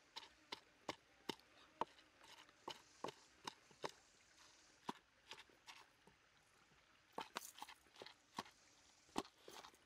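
Wooden pestle pounding chopped food in a wooden mortar: a string of separate knocks, about two or three a second, with a pause about two-thirds of the way through before the pounding resumes.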